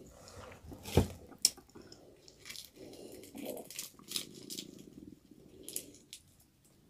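Crispy fried chicken being pulled apart by hand: the breading crackles and the meat tears softly, with a few sharp light clicks and a knock about a second in.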